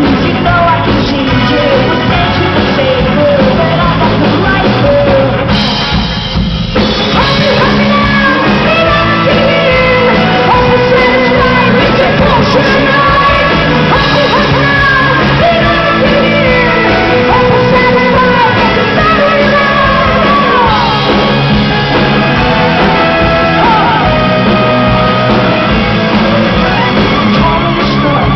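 Rock band playing live with a singer, loud and continuous, with a short drop in the band sound about six seconds in.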